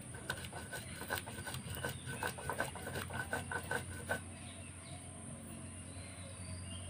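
Stone muller (nora) rocked and ground against a flat grinding stone (shil) over green chilli paste: a run of rhythmic knocking and scraping strokes, about four a second, that stops after about four seconds.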